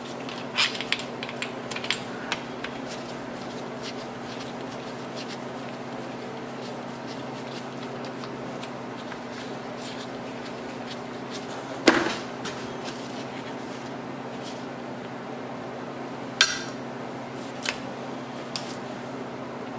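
Hand tools and metal parts clinking against an 18 horsepower Briggs engine being taken apart on a workbench: a few light clicks near the start, a loud metallic clank a little past the middle, another sharp clank about four seconds later, and small clicks near the end, over a steady background hum.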